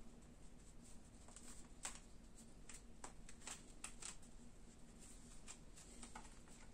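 Faint, irregular light clicks and rattles of fine wire mesh being handled, over quiet room tone.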